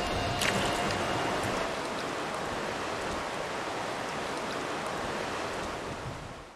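River water rushing steadily, with one brief sharp sound about half a second in; it fades out at the end.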